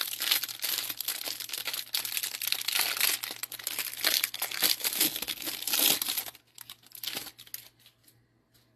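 Clear plastic wrapper crinkling and tearing as it is pulled off a stack of trading cards, dense crackling that stops about six seconds in. A few light clicks follow as the cards are handled.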